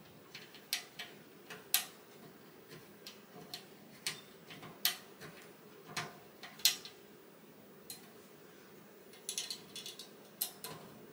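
Small metal hardware clicking and tapping against a cabinet's metal frame as a plate is slid into its slit and a bolt threaded in by hand: irregular sharp clicks, with a quick flurry near the end.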